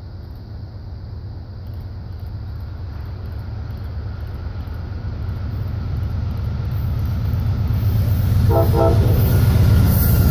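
Amtrak passenger train hauled by a P42DC diesel locomotive approaching, its rumble growing steadily louder as it nears. About eight and a half seconds in, the locomotive's horn gives two quick taps, and the clatter of the passing train swells near the end.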